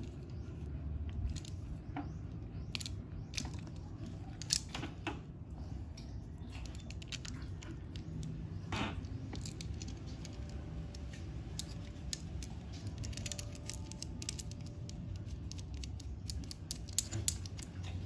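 Small metallic clicks and ticks as bolts and a Shimano post-mount adapter are handled and fitted to a Zoom mechanical disc brake caliper by hand, over a steady low background hum.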